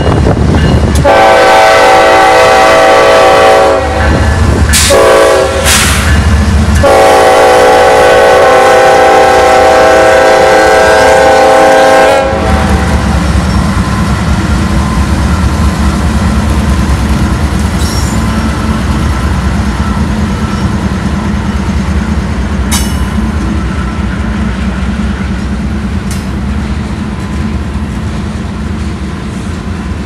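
Freight locomotive horn on Union Pacific GE ES44AC-H UP 2750 sounding a long blast, a short one and a long one, the last cutting off about twelve seconds in as the lead locomotives pass. After that come the low rumble of the diesel locomotives and the rolling clatter of freight cars' wheels on the rails, slowly fading.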